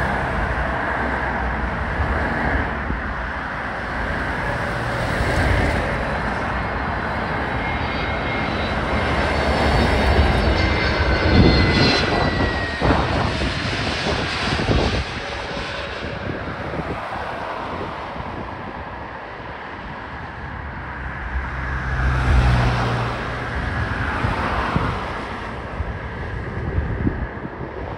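British Airways Airbus A321neo's CFM LEAP-1A jet engines on landing approach. The engine noise builds to its loudest about eleven seconds in, with a high whine that drops in pitch as the jet passes overhead, then fades, swelling once more about twenty-two seconds in.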